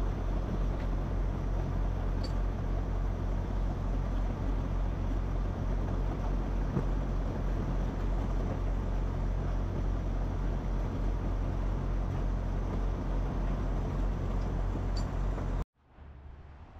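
Semi truck's engine running with a steady low drone and road noise. It cuts off abruptly near the end, giving way to a quieter low hum.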